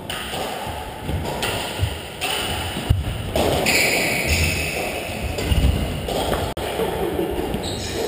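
Badminton rally: scattered sharp racket strikes on the shuttlecock, with players' shoes moving on the court floor, echoing in a large hall.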